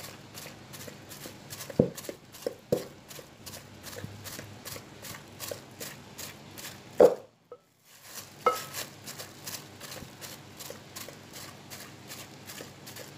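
Cooked glutinous rice being pounded in a rice cooker's inner pot with a bottle: soft, steady thuds about three a second as the sticky dough is mashed, with a few louder knocks against the pot. The sound drops out briefly about seven seconds in.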